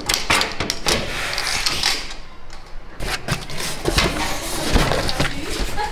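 A key unlocking a metal post office parcel locker, then a cardboard package rubbing and scraping against the compartment as it is pulled out, with a string of short clicks and knocks.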